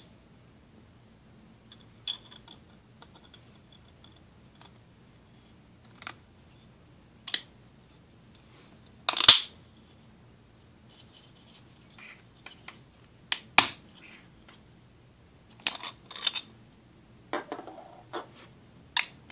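Short, sharp plastic clicks and snaps of a 3D-printed PLA clamp being clipped onto a printed handrail and prised apart. The two loudest snaps come about nine and thirteen and a half seconds in, with lighter clicks scattered around them and a quick run of clicks near the end.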